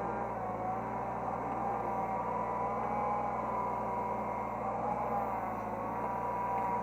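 Hydraulic excavator's diesel engine running steadily, heard from the operator's cab, with a hydraulic whine that slowly rises and falls in pitch as the machine works.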